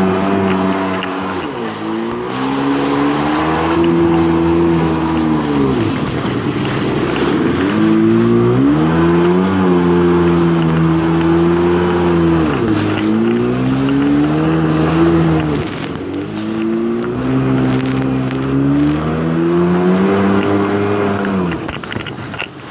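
Jet ski engine running at speed, its pitch dropping and climbing back again about every four to five seconds, over the rush of water and wind.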